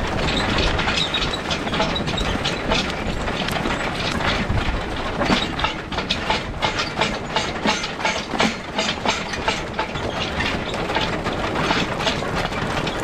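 An excavator track being dragged along the ground behind a team of draft horses, a continuous scraping clatter of the track's links, with sharper clanks from about five seconds in.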